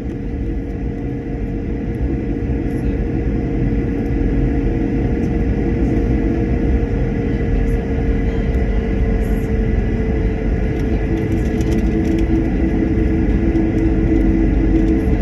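Airliner engines and airflow heard from inside the passenger cabin: a steady low rumble with a few constant hum tones, slowly growing louder.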